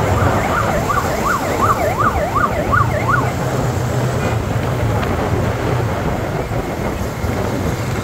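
Yelp siren with fast up-and-down sweeps, roughly three a second, that stops about three seconds in. Under it, the steady drone of motorbike engines and road noise from riding in a convoy of motorbikes.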